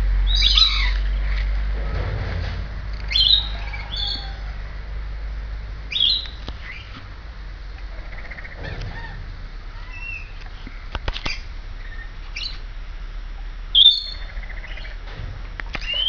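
Rainbow lorikeets calling: about half a dozen short, high calls spread out, the loudest near the middle and near the end, with a few sharp clicks in between.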